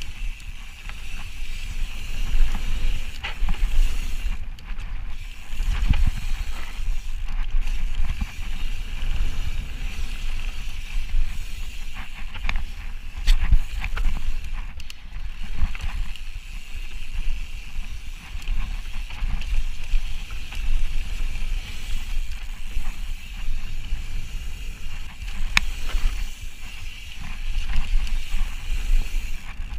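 Ibis Ripley mountain bike running fast down a dirt trail: low wind rumble on the microphone and tyre noise, a steady high buzz, and scattered rattles and knocks as the bike goes over bumps.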